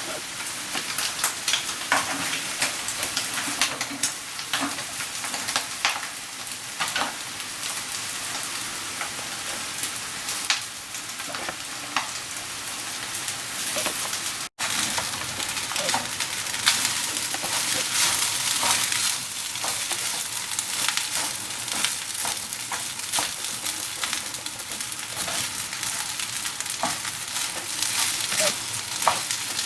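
Fried rice with chicken and vegetables sizzling in a hot pan while a spatula stirs and tosses it, with many scattered clicks and scrapes against the pan. The sound drops out for an instant about halfway.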